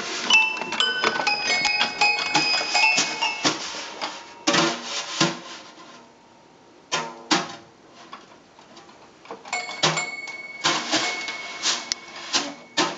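Toy baby grand piano banged by a baby's hands, clusters of high, bell-like plinking notes in the first few seconds and again near the end, mixed with sharp snare drum strikes.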